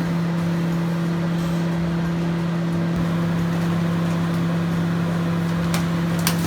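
Microwave oven running with a steady, even hum while it bakes a mug cake. Two short clicks come near the end.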